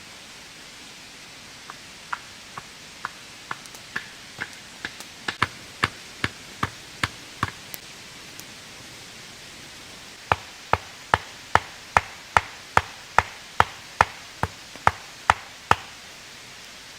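Sharp knocking strikes at about two a second, in two runs of roughly fifteen separated by a pause of a couple of seconds, the first run growing louder, over a steady hiss of rain.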